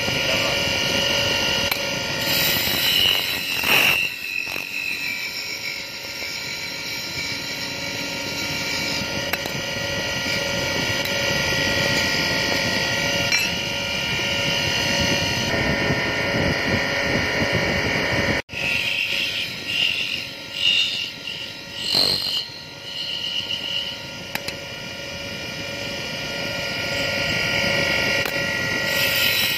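Wood lathe running with a steady motor whine, spinning a small wooden finial; near the start a shaped steel form tool cuts the profile into the spinning wood.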